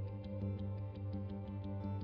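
Instrumental background music: sustained held chords with a light plucked note pattern repeating about four times a second.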